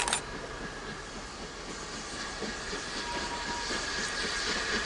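Narrow-gauge steam tank locomotive approaching with its train, working steam with a hissing, chuffing exhaust that grows steadily louder. A sharp click sounds right at the start.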